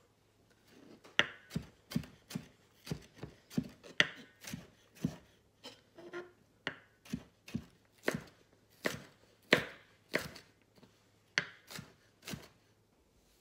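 Chef's knife chopping onion finely on a wooden cutting board: a steady run of sharp knife strikes, about two or three a second, starting about a second in.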